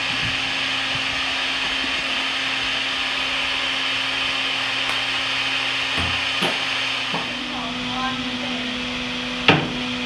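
Handheld hair dryer running steadily: a rushing blow of air over a low motor hum. A few light knocks come a little past halfway, and a single sharp knock near the end is the loudest sound.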